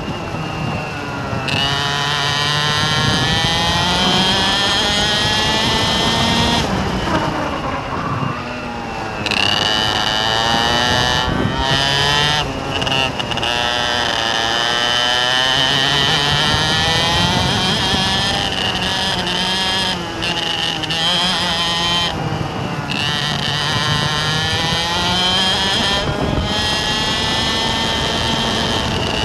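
A vehicle engine running hard, its pitch repeatedly climbing and then dropping back.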